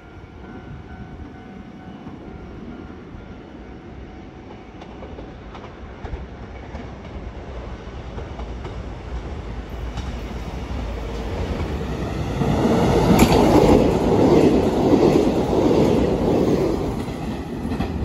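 Taiwan Railway train running past: its noise grows steadily louder and is loudest over the last several seconds as it passes close by.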